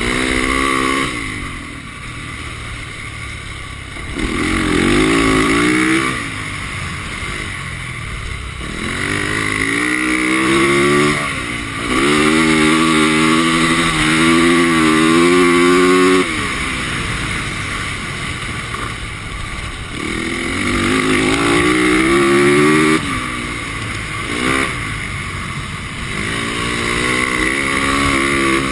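450cc single-cylinder four-stroke dirt bike engine revving up and backing off again and again, pitch climbing with each burst of throttle. The longest, loudest pull comes about halfway through.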